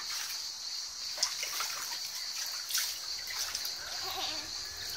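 Water sloshing and lapping in a small inflatable paddling pool as a child wades through it, with a few small splashes.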